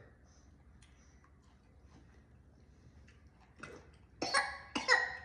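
Quiet, then a person coughs in three short bursts about four seconds in.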